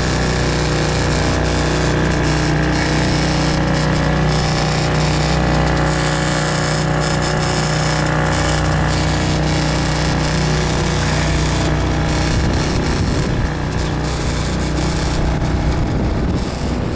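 Honda 5 hp four-stroke outboard motor running steadily under way, with wind noise over the microphone.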